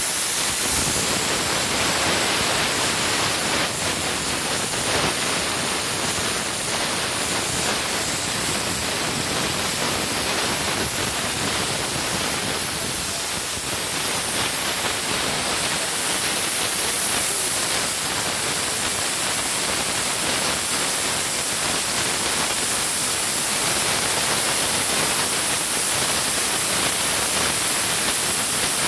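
Machine-guided cutting torch hissing steadily as it cuts a bevel around a steel pipe.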